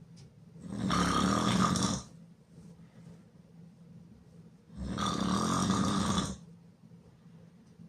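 A person snoring very loudly with the mouth open: two long snores, each about a second and a half, some four seconds apart.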